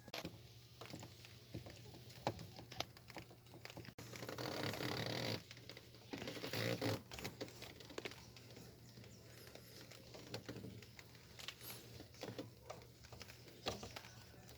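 Hands fitting a new ignition switch into a car's steering column: scattered light clicks and taps of plastic and metal parts, with a louder stretch of rustling about four seconds in.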